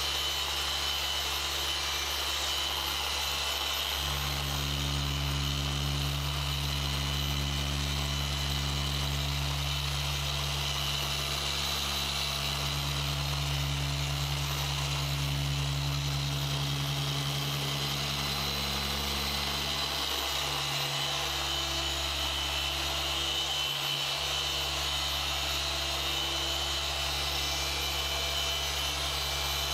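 Rupes Bigfoot dual-action polisher running steadily as it compounds paint in the cutting stage, a continuous motor hum with a thin whine above it. The low hum changes about 4 seconds in and again about 20 seconds in.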